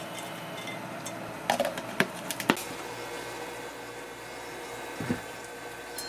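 A few sharp clicks and taps of a plastic container and a ceramic dish being handled while chopped green onion is sprinkled into a dipping sauce, then a soft thump about five seconds in, over a steady low room hum.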